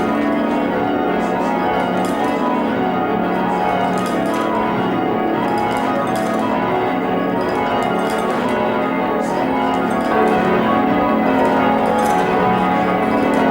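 Church tower bells rung in changes: a continuous stream of overlapping bell strikes, growing a little louder about ten seconds in.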